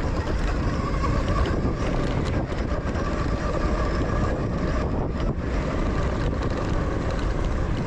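Zero FX electric motorcycle riding fast over rough, rocky trail: heavy wind rush and the rumble of tyres and suspension over rocks, with a thin steady whine from the electric motor.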